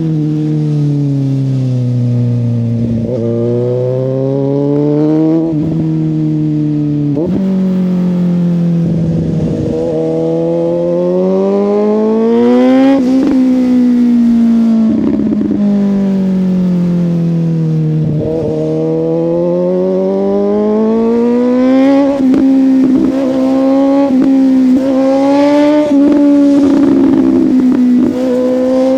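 Suzuki GSX-S750's inline-four engine through a Yoshimura exhaust, riding on the road: the revs climb and drop sharply again and again as it shifts through the gears, with longer stretches where the pitch falls as it slows.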